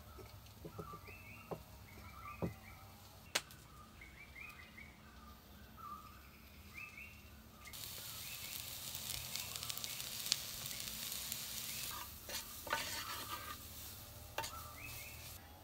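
Chopped velvet beans with green chili and garlic sizzling in a clay pot, stirred with a wooden spoon. The sizzle starts suddenly about halfway through and is loudest for about four seconds. Before it, faint clinks of small clay pots and repeated bird chirps.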